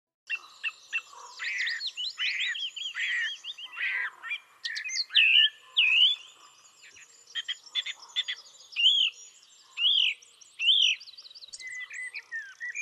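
Several birds singing and calling at once, a dense mix of overlapping chirps and whistles. Midway, one bird gives a few arched whistled notes about a second apart.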